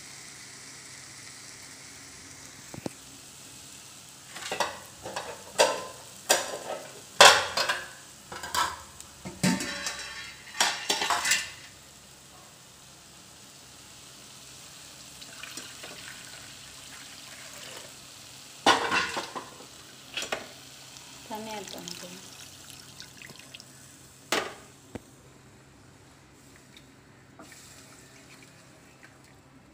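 Wooden spatula stirring and scraping thick onion-tomato masala in a non-stick frying pan over a steady sizzle, with two clusters of sharp knocks and scrapes against the pan. The sizzle fades near the end.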